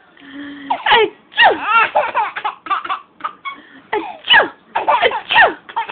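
A 7-month-old baby laughing in a quick run of short bursts, most of them falling in pitch.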